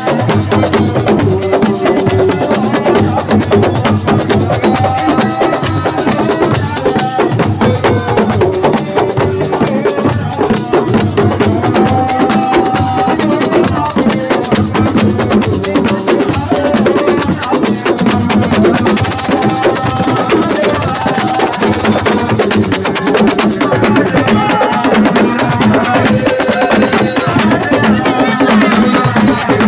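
Live assiko (siko) band playing: dense, fast drumming and percussion, with a voice or melody line held over it.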